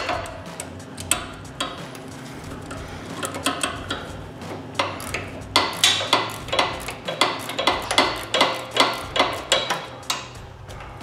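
Hand ratchet and socket backing off the 19 mm nut on a sway bar end link: sharp metal clicks, scattered at first, then a fairly steady run of about three a second from about halfway to near the end, with the odd clink of tools.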